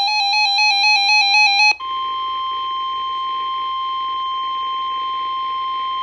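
An electronic warbling alert tone with many overtones sounds for nearly two seconds, then cuts off sharply. In its place comes the steady single-pitch NOAA Weather Radio warning alarm tone (1050 Hz) over a hiss of radio static, signalling that a weather warning is about to be read.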